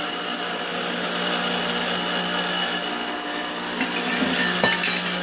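Small electric motor of a homemade polishing bench running steadily, spinning a sanding disc on a long shaft, with an even hum. A couple of sharp knocks near the end.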